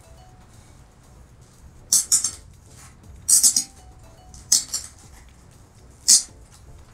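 Four short, sharp rustling and crinkling bursts from decorative picks and foil and glitter shamrock trimmings being pushed and handled in a table centerpiece. Faint background music plays underneath.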